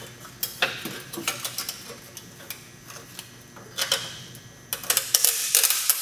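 Hand socket ratchet clicking in short runs as a nut on a stainless exhaust clamp is tightened, with the loudest, densest run of clicks near the end.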